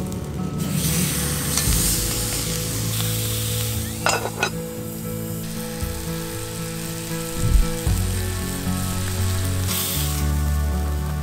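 Steak sizzling as it sears in a hot cast-iron skillet, a steady frying hiss, with two sharp clicks about four seconds in. Soft background music plays underneath.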